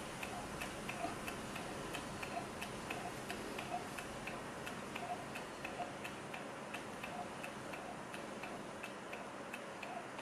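Small low-temperature-differential Stirling engine running on the cold of ice beneath it, its moving parts ticking softly and evenly about twice a second as the flywheel turns.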